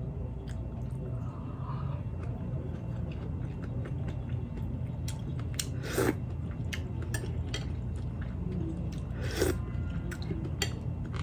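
A person chewing boiled pork close to the microphone, with many small wet mouth clicks. Two louder mouth sounds come about halfway through and again near the end.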